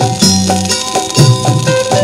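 Old Indian film duet playing from a vinyl LP: an instrumental passage with a held melody over a regular drum and percussion beat.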